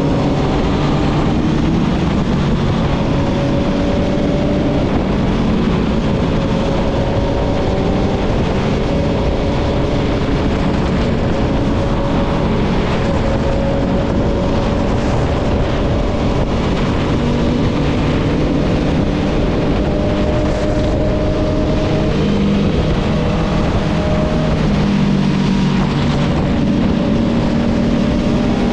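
Motorcycle engine running at cruising speed on the move, with a loud rush of wind over the microphone; the engine note drifts gently up and down in pitch as the throttle changes.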